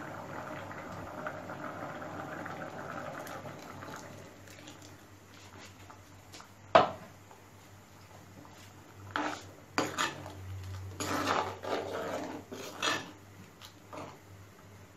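A steel bowl and a metal spoon against a clay curry pot. For the first few seconds there is a steady scraping and pouring as a thick white mixture is tipped in. About seven seconds in comes one sharp metal clink, then a run of spoon knocks and scrapes as the curry is stirred.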